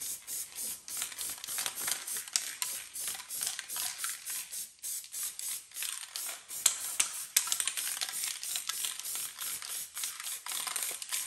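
Rapid, irregular mechanical clicking over a hiss, from hand work on a car's rear drum brake.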